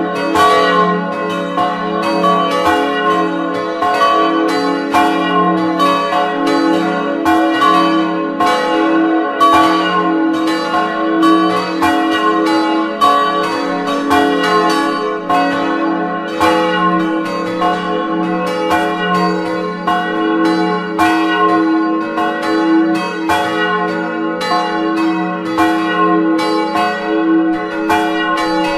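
The four bronze church bells of St. Jakobus swinging and ringing together in a full peal, heard close up from inside the timber belfry. Among them are the great old weather bell and three smaller post-war Grassmayr bells. Their strokes overlap two or three times a second over a steady ringing hum.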